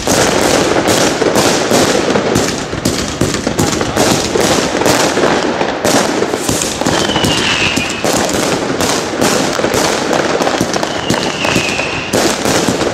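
Röder Kunterbunt 25-shot, 30 mm fan cake firing: shots launching and bursting in quick, overlapping succession, about three reports a second.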